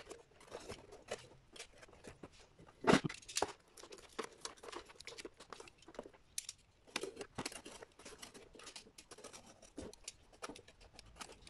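Sped-up handling noise from a battery's metal casing as its cover panel is worked loose and pulled away: a rapid patter of small clicks and scrapes, with a louder clatter about three seconds in.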